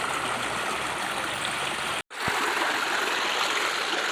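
Small hill stream running, a steady rush of water that drops out for an instant about two seconds in where the footage cuts, then carries on.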